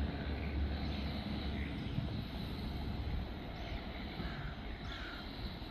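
Steady low rumble of a distant engine, heaviest in the first couple of seconds and then easing off, with a few faint short calls above it.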